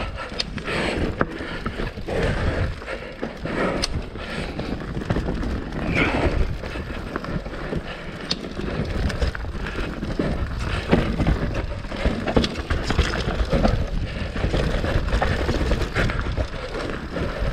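Mountain bike riding down a dirt forest trail: tyres rumbling over dirt and roots, with frequent knocks and rattles from the bike over bumps.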